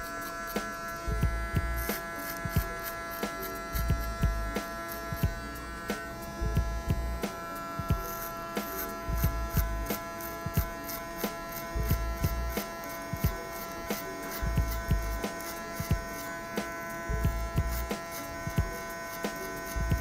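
Electric hair clipper with a 4 mm guard running with a steady hum as it cuts short hair at the side and back of the head, with frequent small clicks.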